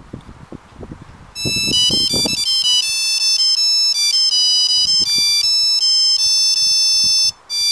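Mobile phone ringtone ringing for an incoming call: a fast melody of high electronic beeping notes that starts about a second and a half in, breaks off briefly near the end and starts again. Low rustling and handling noise comes before it.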